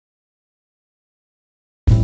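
Digital silence, broken just before the end by the sudden start of a music track with a steady bass line.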